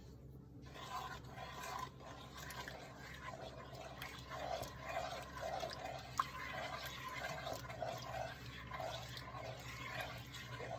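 A spoon stirring thick cream of mushroom soup and milk in a metal pot: soft, wet sloshing strokes at about two a second, starting about a second in. There is one sharp click about six seconds in.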